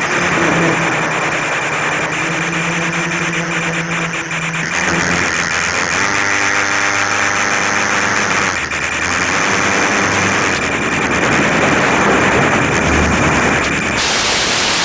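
Quadcopter's electric motors and propellers whirring, their pitch shifting several times. A sudden hiss comes in near the end.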